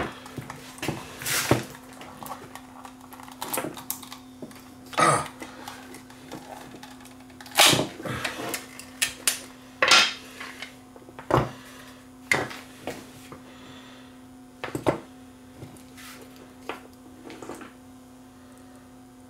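Hard plastic halves of a power-supply brick's split case and hand tools clacking and knocking on a workbench as the case is pulled apart and set down, a string of irregular sharp knocks. A faint steady hum runs underneath.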